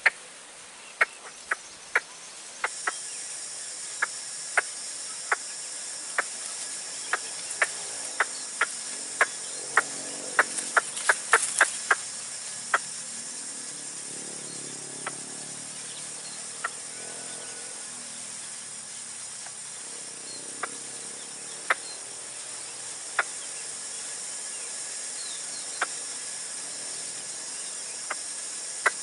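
Steady high insect chorus, like crickets, with irregular sharp clicks or ticks over it that come in a quick flurry about ten to twelve seconds in.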